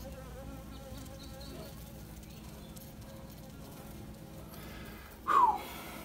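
Steady hum of a large colony of honey bees swarming over exposed comb in a wall cavity. About five seconds in, a short louder sound slides down in pitch.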